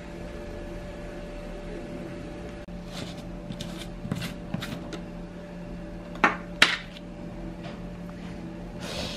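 Plastic screw lid of a protein-powder tub being twisted open and handled: a few light clicks, then two sharp plastic clacks about six seconds in, over a steady low hum.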